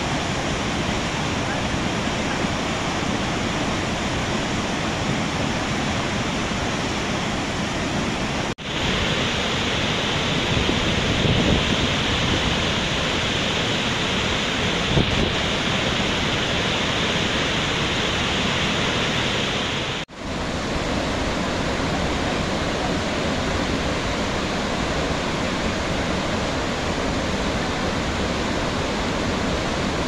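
Athirappilly Falls on the Chalakudy River in heavy flow after rain: a steady rush of falling water. It drops out briefly twice, and between those drops it sounds brighter and hissier.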